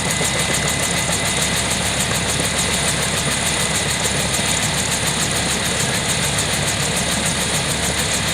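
Bell UH-1 Huey helicopter running steadily, its turbine engine and two-blade rotor turning with a fast, even beat.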